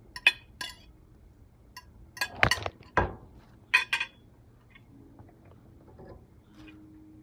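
Spatula clinking against a plate and a pan as vegetables are scraped in, then two heavy knocks about 2.5 and 3 seconds in as the camera topples onto the stove, followed by a couple of sharper clinks.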